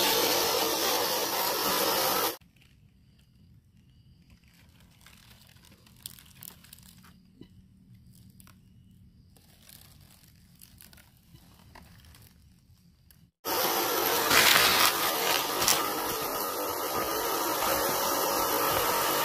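1/10 scale RC crawler driving over dry leaves and twigs: its small electric motor and gears run with a noisy buzz while the tyres crunch the litter. About two seconds in the sound cuts out abruptly to a faint stretch with a few small clicks, and about 13 seconds in the motor and crunching noise returns just as abruptly.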